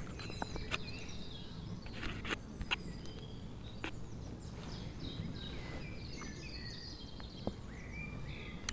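Outdoor ambience with small birds chirping on and off, and a few sharp light clicks scattered through it.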